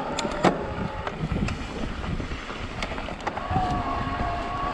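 Shimano Steps E8000 mid-drive e-bike motor whining under load in full boost on a climb, a steady high whine that is faint at first and comes back strongly past the middle. Sharp knocks and rattles of the bike over rock and wind rumble on the microphone run under it.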